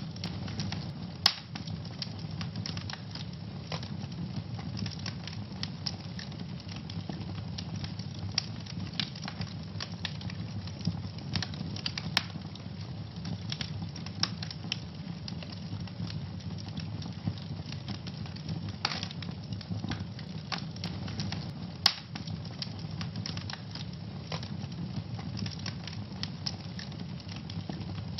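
Wood fire in a fireplace crackling, with many small irregular snaps over a low steady rumble of the flames and a few sharper pops, the loudest about a second in and again near 22 seconds.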